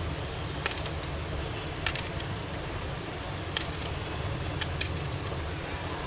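Steady low hum and hiss, with a few scattered sharp clicks as a knife cuts through a cucumber and the slices drop into a steel bowl.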